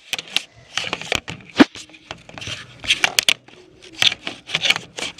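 Handling noise: a sweatshirt rubbing and brushing against the camera's microphone, with irregular scrapes and knocks, the loudest about one and a half seconds in.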